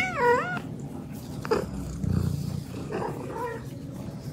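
Mother cat meowing: one call that wavers up and down in pitch at the start, then a short call about a second and a half in and a fainter one about three seconds in.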